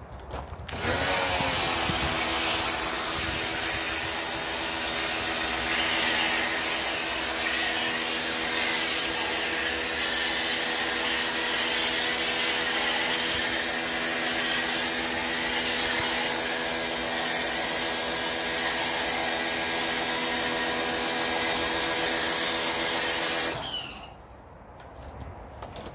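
Pressure washer running with a snow foam lance, spraying foam: the motor and pump spin up about a second in and run steadily under a hiss of spray, then cut off near the end.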